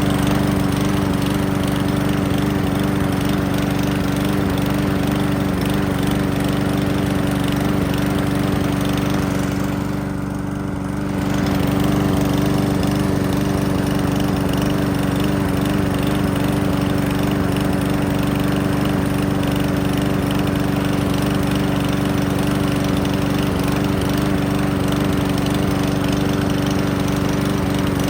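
Briggs and Stratton 5.5 hp single-cylinder engine on a Craftsman push mower running steadily after a fuel problem was fixed, with a short dip in loudness about ten seconds in.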